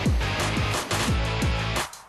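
Background music with a steady beat of deep kick drums that fall in pitch, under sustained chords; the music drops out briefly near the end.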